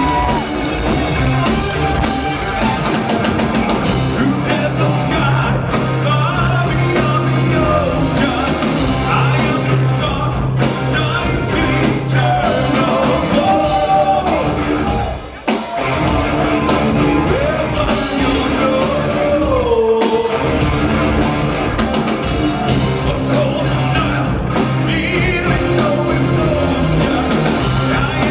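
Progressive metal band playing live and loud: drums, bass, guitar and keyboards under a male lead vocal. The band cuts out for an instant about halfway through, then comes straight back in.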